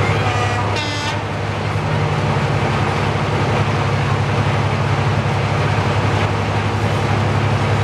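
Class 55 Deltic diesel locomotives' Napier Deltic two-stroke engines running with a loud, steady low drone as one Deltic draws slowly out of the tunnel past another standing Deltic. A brief high squeal sounds about a second in.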